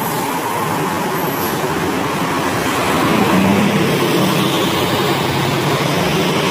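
Steady street traffic: engines and tyres of passing cars, with a box truck among them, in a continuous wash of road noise that swells slightly about halfway through.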